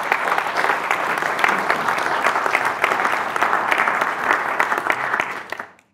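Audience applauding: a dense patter of many people clapping at once, fading out near the end.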